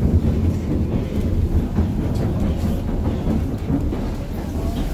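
White Pass & Yukon Route narrow-gauge passenger coach running along the track, heard from inside the car: a steady low rumble of wheels on rails.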